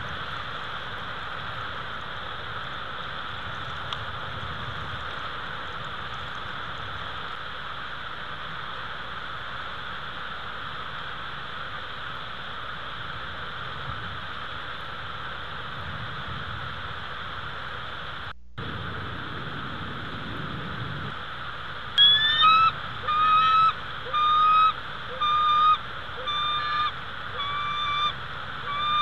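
Steady hiss of a winter storm on an outdoor nest-camera microphone, broken by a brief dropout about two-thirds of the way through. Near the end a large bird starts calling loudly: a run of short honk-like notes, about one a second, each rising slightly.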